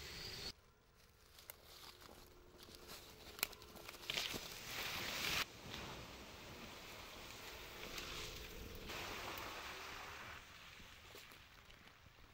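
Tyres of a Ford F-150 Lightning electric pickup churning through mud and puddles on a dirt trail, squelching and splashing. The loudest part is a burst of spray about four to five seconds in.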